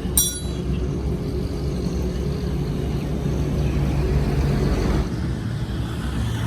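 An engine running steadily at constant speed, with a single short ringing metallic clink just after the start.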